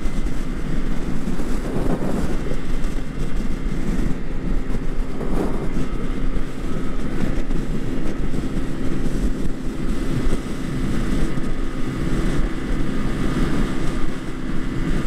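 Scooter engine running at a steady highway cruise, a constant drone under wind rushing over the microphone and road noise.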